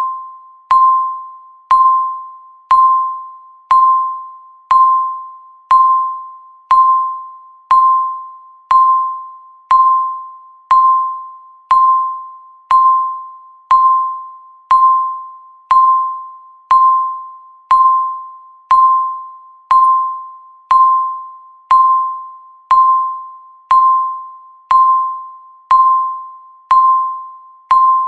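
Countdown timer's electronic beep: one high tone with a sharp attack every second, each ringing down before the next, in an even rhythm.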